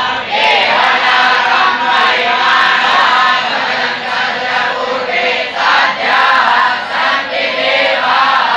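Many voices chanting together in unison, a loud group recitation sung to a simple melody.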